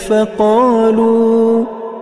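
A voice chanting Quran recitation in a slow melodic style, drawing out the last syllable of a phrase as one long note with a rise and fall in pitch. The note fades about three-quarters of the way through, leaving a short pause for breath.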